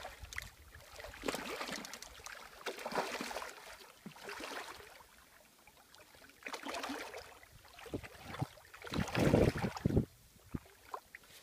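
Water splashing in irregular bursts as a large hooked black drum thrashes at the surface beside the boat, the loudest splashing about nine seconds in.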